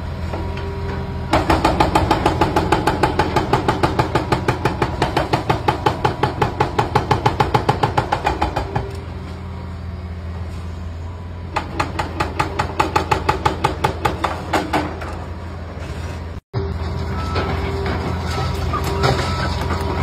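Excavator diesel engine running steadily, under two long runs of rapid metallic pounding at about five blows a second. The sound drops out briefly at a cut near the end.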